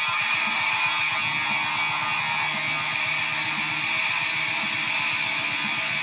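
Electric guitar played through effects pedals and a multi-effects processor: a dense, held high tone over fast, evenly pulsing low picking that fades out in the first second or two.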